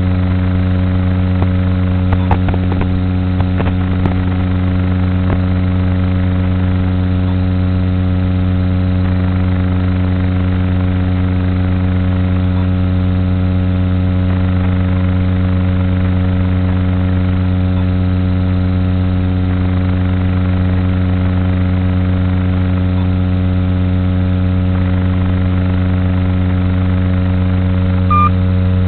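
A steady low buzz with an unchanging pitch, carried on the FPV wing's analog video-link audio, with a few faint clicks about two to five seconds in.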